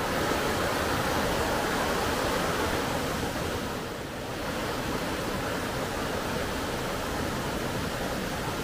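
Steady rush of flowing river water, dipping slightly about four seconds in.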